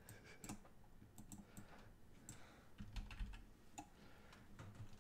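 Faint, irregular clicks of a computer keyboard being typed on, with a few keys struck a little harder around the middle.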